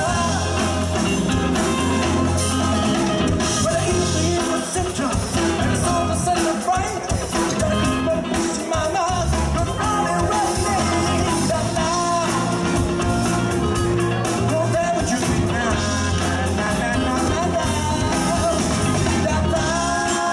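Live pop-rock band playing a song, a male voice singing lead over electric bass and a drum kit.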